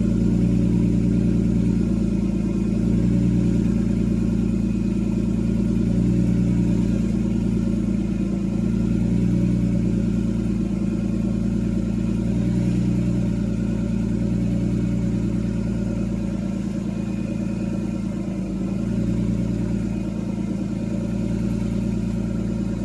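BMW S54 straight-six idling fast just after start-up, the idle slowly settling. It runs smoothly with no valvetrain tick, the out-of-spec valve clearance having been adjusted back into spec.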